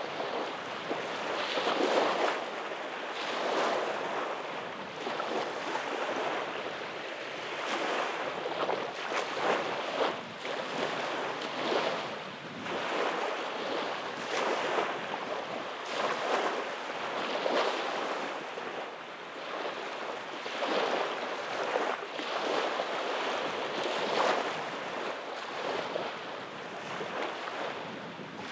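Small waves breaking and washing up a sandy beach: a steady hiss of surf that swells and fades every second or two.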